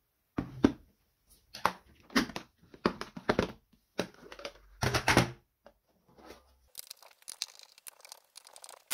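Plastic electric lunch box being handled, clacking and rattling in several sharp, irregular bursts. About two-thirds of the way in, these give way to a fainter scratchy scraping as a screwdriver works at the screws of its metal inner tray.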